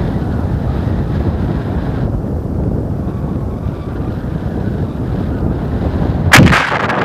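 Airflow buffeting the camera microphone during a tandem paraglider flight, a steady low rumbling rush. About six seconds in comes a sudden loud blast, after which the rush turns thinner and hissier.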